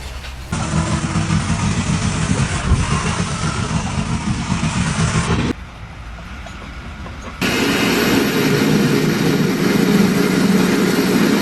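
A motor-driven machine or vehicle engine running, in two separate stretches that start and stop abruptly.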